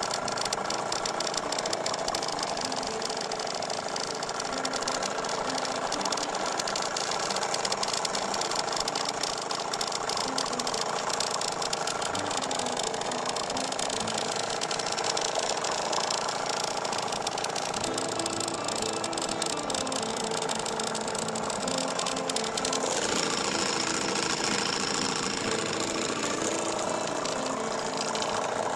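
Outboard motor running steadily at trolling speed, with a fast, even rattle, pushing a small boat slowly across the water.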